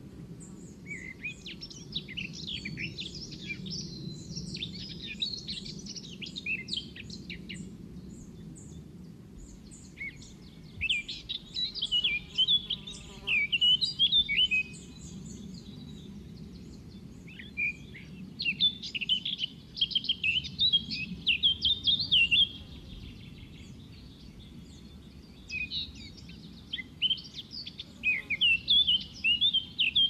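A songbird singing in four bouts of rapid, varied chirping phrases separated by short pauses. A faint high ticking repeats throughout over a steady low background noise.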